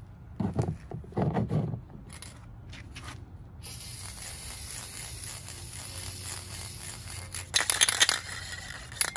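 A plastic car trim panel is handled and scraped on a folding table in two short bouts. A brief loud burst of aerosol spray-paint can noise follows near the end.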